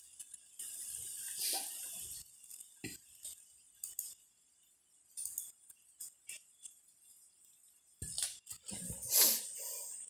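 Rustling and small clicks of hands working a plant's stems and a tie around a wooden post, with a louder rustle near the end.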